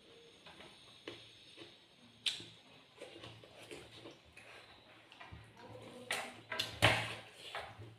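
A person eating: irregular wet clicks and crunches of chewing, growing louder and busier about six to seven seconds in.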